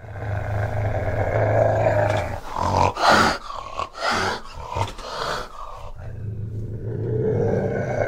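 Fishing cat growling low and steadily. About two and a half seconds in, the growl breaks into a run of short, harsh open-mouthed bursts, then settles back into a low growl near the end.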